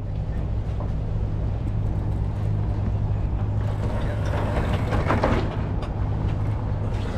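Sailing yacht's inboard engine running steadily under way, a low even hum, with some busier noise of water or wind over it around the middle.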